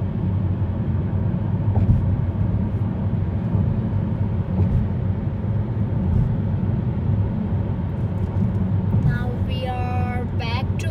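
Steady low road and engine rumble inside the cabin of a car driving along a highway. A voice starts near the end.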